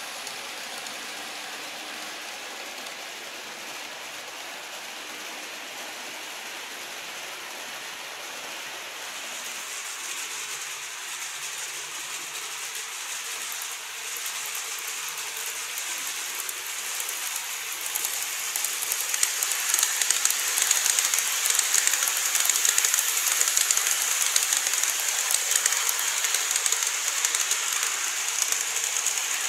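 Model railway train running on sectional plastic track, a steady rattle of wheels on rails and motor whir. It grows louder from about ten seconds in and is loudest in the second half.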